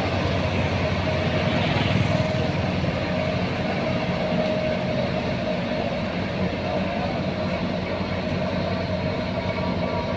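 Heavy road-construction machinery running steadily: a diesel engine's drone with a constant mechanical hum and whine.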